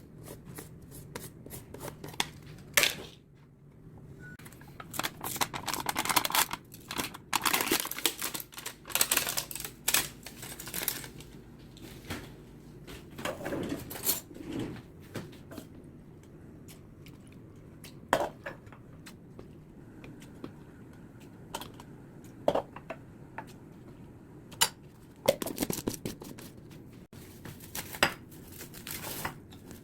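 Irregular rustling and crinkling with scattered sharp clicks and taps, as of things being handled, busiest in a run of several seconds near the middle.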